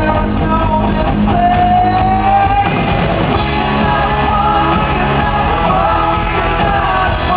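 Rock band playing live at a sound check, a singer's voice over the full band, loud and continuous, with one long held note about a second in.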